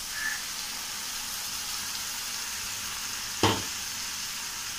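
Chopped onions and cumin frying in oil in a non-stick pan, a steady sizzle, as tomato puree is tipped in from a steel bowl. A single knock about three and a half seconds in.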